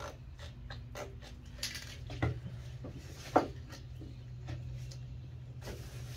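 Scattered light clicks and taps, with a sharper tap about three and a half seconds in, over a steady low hum.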